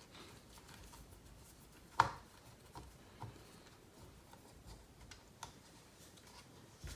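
Hand hex driver backing screws out of an RC car's plastic front bumper: faint scattered ticks and rubbing, with one sharp click about two seconds in.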